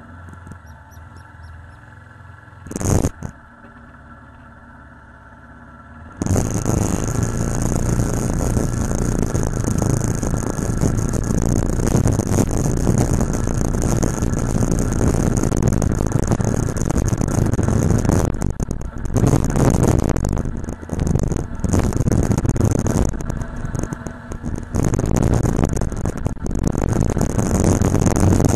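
Motorcycle engine idling at a stop, with one short loud burst about three seconds in. About six seconds in, loud riding noise starts suddenly: the engine under way and wind rushing over the bike-mounted camera's microphone, easing briefly a few times.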